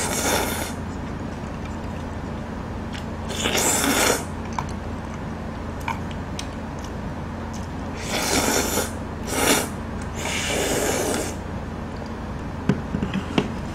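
A person slurping noodles and broth of seafood kalguksu from a bowl: about five short slurps, the longest near the end, with a few light clicks afterwards.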